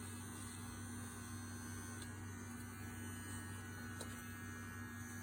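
Manscaped Lawn Mower 3.0 battery trimmer running with a steady low hum while trimming hair.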